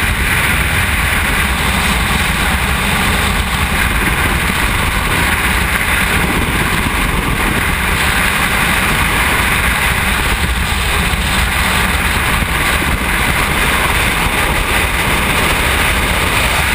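Steady, loud rush of freefall wind buffeting a skydiver's helmet-mounted camera microphone.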